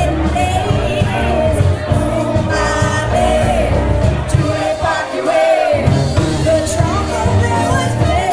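Live brass band playing a New Orleans-style Mardi Gras song, a woman singing lead over trombone, horns, bass and drums. The bass drops out briefly about five seconds in, then the band comes back in.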